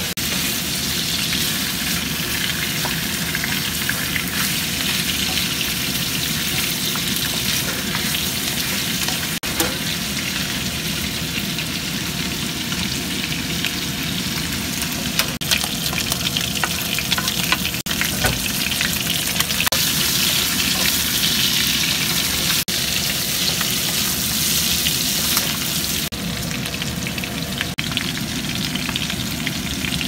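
Bone-in meat pieces sizzling steadily in hot oil in a black wok, stirred with a wooden spatula that scrapes and taps against the pan now and then.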